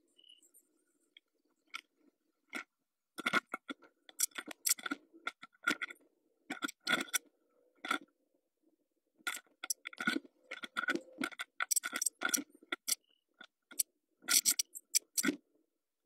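Blue tit moving about in its nest of moss and feathers inside a wooden nest box: irregular runs of close rustling, scratching and crackling, sparse at first and busy from about three seconds in.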